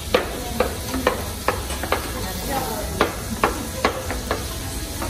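Chopped bacon sizzling as it fries in a stainless steel saucepan, stirred with a metal spoon that clinks and scrapes against the pan about twice a second.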